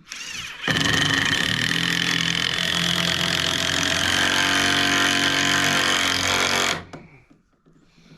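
Cordless impact driver driving a long screw into 2x4 framing: a short spin, then a steady hammering run of about six seconds that stops abruptly.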